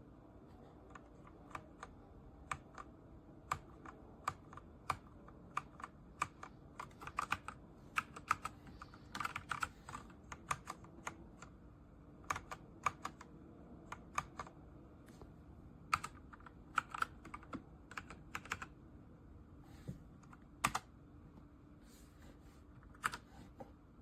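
Typing on a Redragon K617 Fizz 60% mechanical keyboard: irregular key clicks, at times in quick runs.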